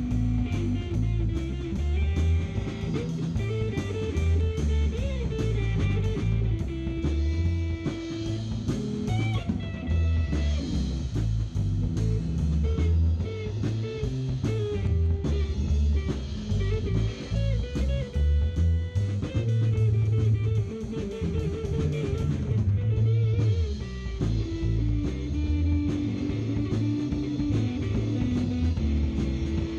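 Live improvised instrumental rock jam on a drum kit with Zildjian cymbals and an electric bass guitar. The drums keep a steady beat under the bass line.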